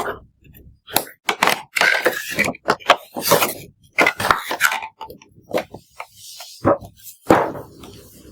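Packaging being handled and opened: a quick, irregular run of crackles, knocks and clinks.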